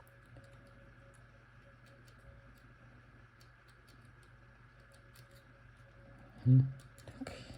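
Faint, scattered small clicks of a disc-detainer pick turning the discs inside an Abloy Classic padlock, over a steady low hum. A brief, louder low sound comes about six and a half seconds in.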